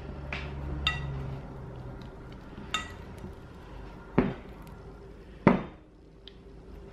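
Glass mixing bowl being handled while sourdough dough is stretched and folded in it: the glass clinks and rings briefly a couple of times, with two heavier thumps about four and five and a half seconds in.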